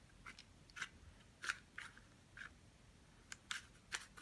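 Faint, irregular plastic clicks of a 2x2 mirror cube's layers being twisted by hand, about ten small clicks over a few seconds.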